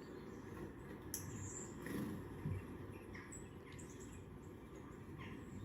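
Birds chirping from a TV's speakers: a handful of short, separate chirps over a low steady background noise.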